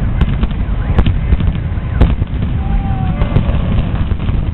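Explosive demolition charges detonating as an office building is imploded: a string of sharp cracks, about four in all, the strongest about two seconds in, over a steady low rumble.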